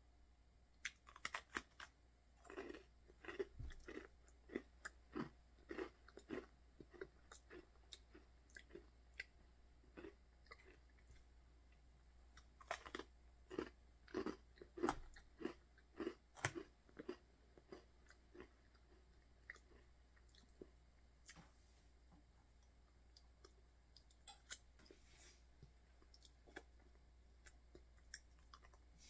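Close-up crunching and chewing of a crisp Oreo sandwich cookie, in quick runs of small crackly crunches. They come thickest in the first half and thin out to occasional crunches in the later part.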